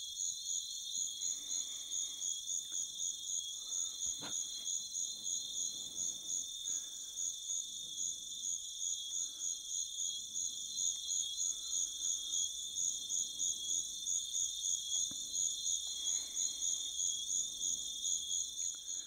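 Recorded chorus of tens of thousands of stridulating insects in the Congo rainforest, played back over loudspeakers. It is a dense, steady, high trill that pulses about three times a second, and it cuts off near the end.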